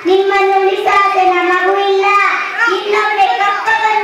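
A child singing, holding long, steady notes.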